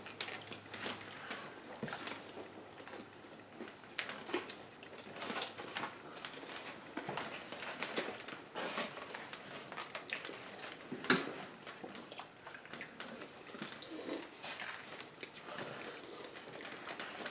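People eating burgers and fries: chewing and biting, with scattered small clicks and knocks from food and packaging, the sharpest about eleven seconds in.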